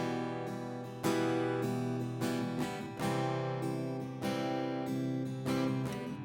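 Acoustic guitar strumming chords, a fresh strum about once a second, as the instrumental opening of a song before the vocals come in.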